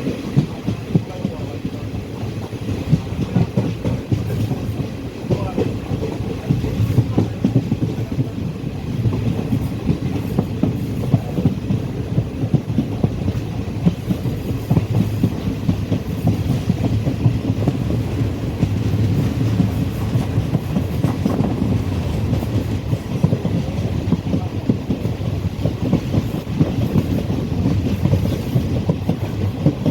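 Passenger train running along the track, a steady rumble with the wheels clattering over the rails, heard from on board.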